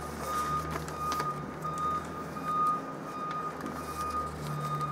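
A high electronic beep repeating in a steady rhythm, about two a second, over a low steady hum.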